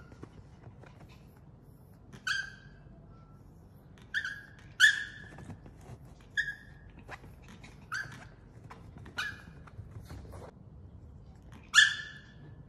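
A small dog giving about seven short, high-pitched whines and yips, each dropping slightly in pitch. They come at uneven intervals, and the loudest are about five seconds in and near the end.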